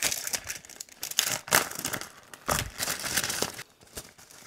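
Paper crinkling and tearing as an envelope is torn open and the letter inside is pulled out and unfolded, in irregular bursts that stop about three and a half seconds in.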